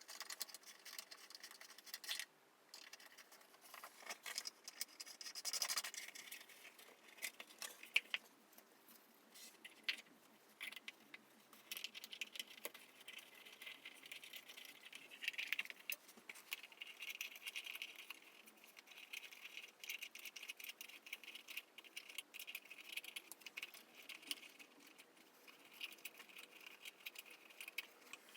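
Floor lamp parts being handled and fitted together during assembly: faint, irregular clicks, rattles and scratching.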